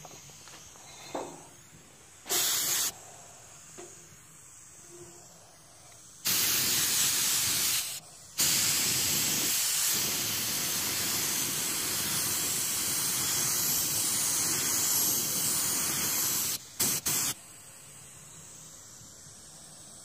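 Gravity-feed paint spray gun on compressed air spraying 2K high-build primer: a short burst, then a pull of nearly two seconds, then a long steady hiss of about eight seconds, ending in two quick blips. It is the first coat of primer going onto the panel.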